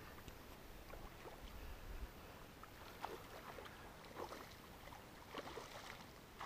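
Faint splashing and sloshing at the water's edge, a few short splashes in a quiet stretch, as a hooked rainbow trout thrashes close to the bank on a tight fly line.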